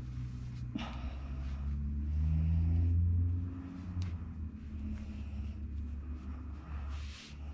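Cotton T-shirt rustling and brushing as it is wrapped and twisted around hair, over a low rumble that swells for about a second and a half in the middle.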